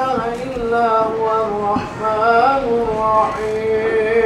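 A man's solo voice chanting a religious recitation in a drawn-out, melodic style, holding long notes that slide between pitches, with brief breaks for breath.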